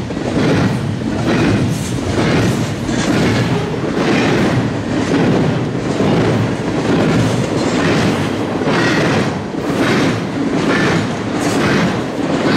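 Union Pacific double-stack intermodal freight cars rolling past, a steady loud rumble of steel wheels on rail with repeated knocks a couple of times a second.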